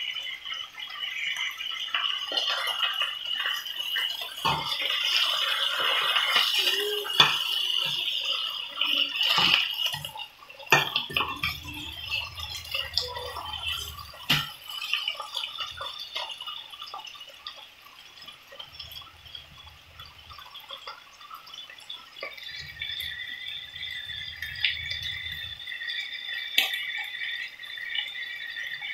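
Striploin steaks sizzling in hot oil in a frying pan, with a few sharp clicks of a metal fork against the pan as the pieces are turned about halfway through.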